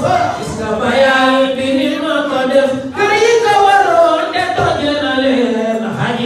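Men chanting a devotional song into handheld microphones, with long drawn-out notes that glide in pitch and a brief break about three seconds in.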